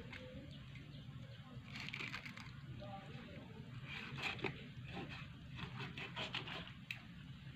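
A knife cutting a fillet off a small tilapia on a cutting board: faint scratchy, crackling strokes in a few short runs as the blade slices along the fish's bones and skin.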